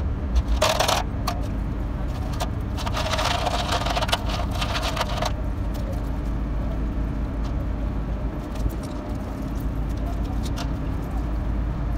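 Hands scrubbing greasy wheel-bearing rollers and their cage with a scouring pad in a basin of dirty oily liquid: splashing, scraping and small metal clinks. These come in a short burst near the start and a longer one of about two seconds a few seconds in, over a steady low rumble.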